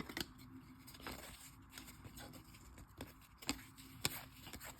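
Baseball trading cards being handled and flipped through by hand: faint, scattered clicks and scrapes of card stock sliding against card stock, a few each second.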